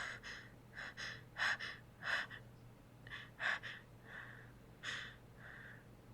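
A woman's breathy gasps and breaths, about nine short ones at uneven intervals, as she holds back a building sneeze.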